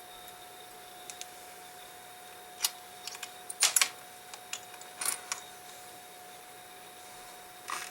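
Scattered small, sharp metallic clicks and taps of watchmaker's tweezers and screwdriver on a pocket watch movement as its bridge plate and screws are fitted, with a cluster of clicks in the middle and another click near the end.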